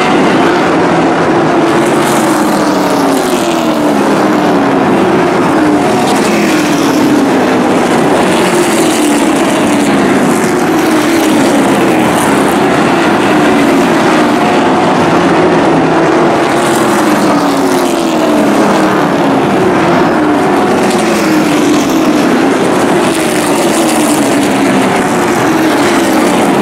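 A pack of short-track race trucks running at racing speed, several engines at once, the engine note sliding down in pitch again and again as trucks go by.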